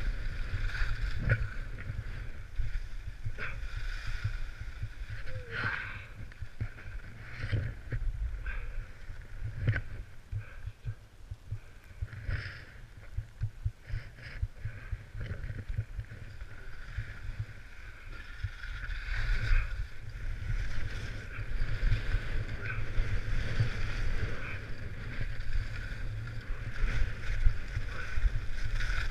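Wind buffeting the microphone of a moving downhill camera, with the hiss and intermittent scraping of edges carving over packed snow; it grows louder in the last third.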